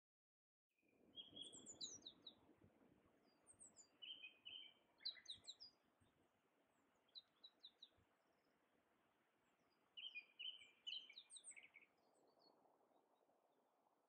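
A songbird singing four short phrases a few seconds apart, each of whistled notes and quick higher notes, faint over a low background hiss; the sound starts about a second in.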